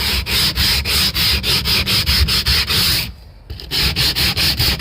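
Sandpaper rubbing on the weathered wooden garage door, stripping the old varnish in fast even strokes, about seven a second, with a short break about three seconds in.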